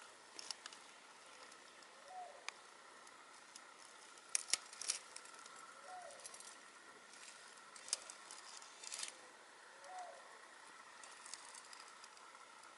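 A dove cooing faintly, a short low call repeated three times about four seconds apart, with small birds giving sharp high chirps in clusters around the middle.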